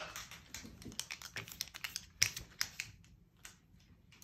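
Paper strips being gathered and handled: a run of light taps, clicks and rustles that thins out after about three seconds.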